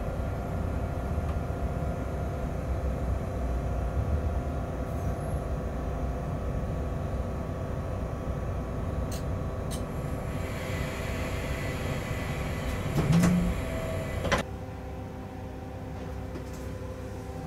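Running noise inside a freight locomotive's cab: a steady low rumble with several steady humming tones. About ten seconds in a hiss rises, there is a short louder burst near the thirteenth second, and a sharp click about a second later, after which the running sound is quieter.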